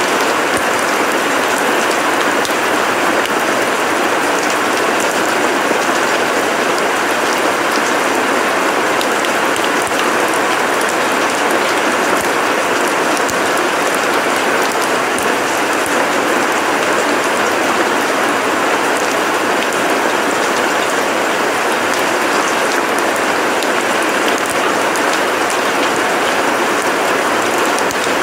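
Steady rain falling on paving and grass, a dense, even hiss of drops.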